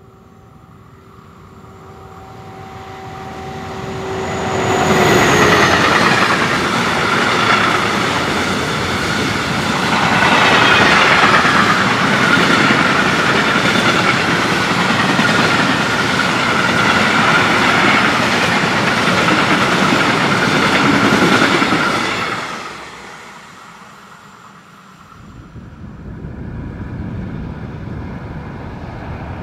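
Class 185 electric locomotive approaching with a steady whine that grows louder and drops slightly in pitch as it passes, about five seconds in. A long freight train of empty stake wagons follows, its wheels rolling over the rails with a loud clatter and a steady high ring, until the sound cuts off sharply. Near the end another train, a class 111 electric locomotive hauling passenger coaches, is heard approaching.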